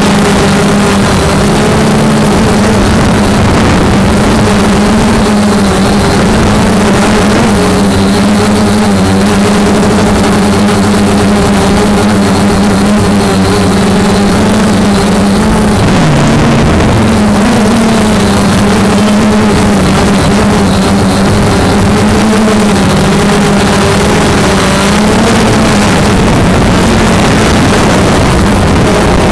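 A motor running steadily close to the microphone, its pitch wavering slightly and dipping briefly about sixteen seconds in.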